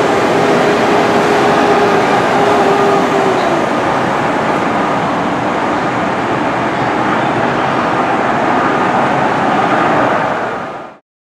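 Train running on rails, heard as a steady rumble of wheel and track noise with faint held squealing tones; the sound fades out sharply near the end.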